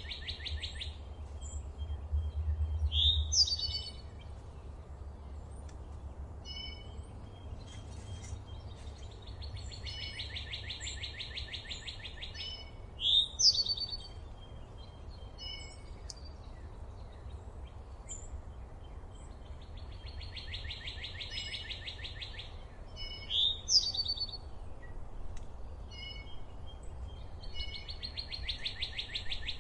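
Songbirds singing: a fast, even trill about a second and a half long, followed within a couple of seconds by loud, sharp upward-sweeping notes, the pair coming back about every ten seconds, with scattered short chirps between. A steady low rumble runs underneath.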